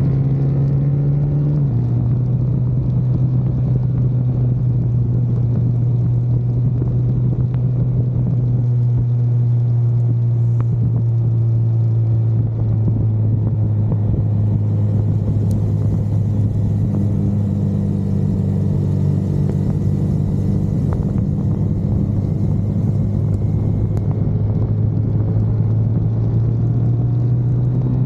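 Car engine heard from inside the car, holding a steady drone under a constant hiss of tyre and road noise on a wet track. Its pitch steps down once about two seconds in and climbs again near the end.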